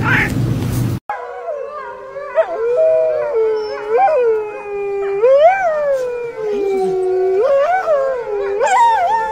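A wolf and a dog howling together, starting about a second in: long wavering howls that overlap, rising and falling in pitch.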